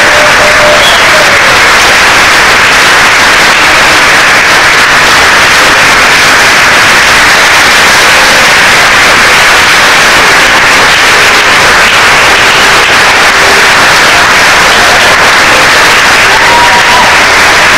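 Audience applauding, loud and steady throughout, with no let-up.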